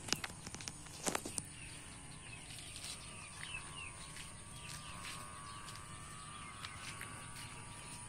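Rural evening ambience: scattered short bird chirps over a steady high insect hum, with a few sharp clicks in the first second and a half.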